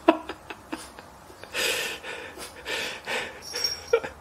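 Three short breathy hisses or snorts in the second half, about a second apart, from a cat and a French bulldog facing off, with a few light taps before them and a sharp click near the end.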